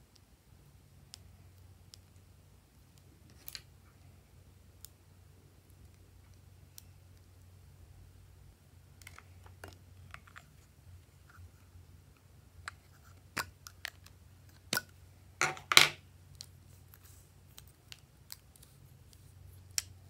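Plastic cosmetic cases and lipstick caps being handled and opened: scattered light clicks and taps, then a run of louder clicks about two-thirds of the way in, the loudest around three-quarters through. A low steady hum sits underneath.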